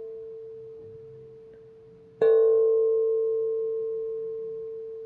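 A soft, bell-like ringing tone, one steady pitch with overtones, fading slowly. About two seconds in it sounds again with a sharp onset and rings on, dying away slowly.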